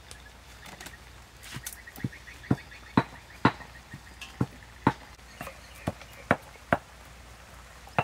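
Steady, evenly spaced strikes of food preparation, about two a second, starting about a second and a half in.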